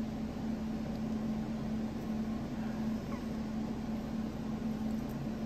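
Steady low machine hum of room background noise, carrying one constant tone, with a faint click or two about three and five seconds in.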